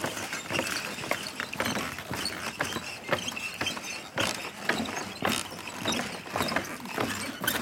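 Footsteps of several people knocking on the wooden planks of a suspension footbridge, irregular knocks two or three times a second.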